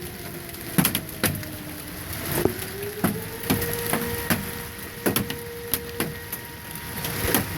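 Tornado warning siren sounding as one held tone. Its pitch sags about two seconds in, then climbs back and holds steady. Over it, marble-sized hailstones strike hard surfaces in irregular sharp clicks, which are the loudest sounds.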